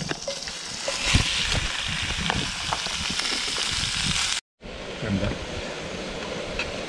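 Cubed raw meat sizzling and frying steadily in a hot black steel pan on a camp stove, with a few clicks of tongs against the pan near the start. The sizzle cuts out for an instant partway through, then carries on.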